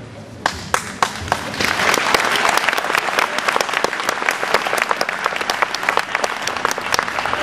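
Audience applauding: a few single claps about half a second in, quickly swelling into full, steady applause in an echoing sports hall.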